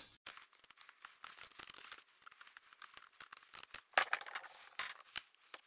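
Light clicks and metal rattles from handling an angle grinder and fitting its wood-carving disc; the grinder's motor is not running.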